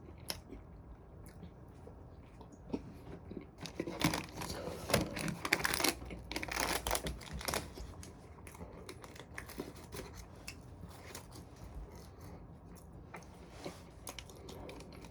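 Paper being torn and crinkled in a few rustling bursts about four to eight seconds in, with scattered soft clicks around it.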